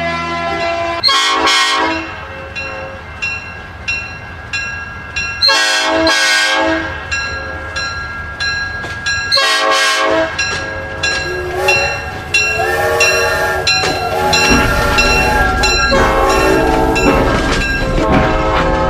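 Battery-operated toy train's electronic sound effects: a horn sounds three times, with an even clickety-clack ticking about twice a second between the blasts. In the last third, wavering tones play over a low hum.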